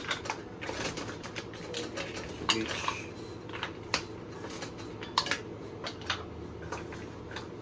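Cooked mussels being moved from the pan onto a plate: shells and a utensil clinking and clattering against the dishes in irregular clicks, a few of them louder.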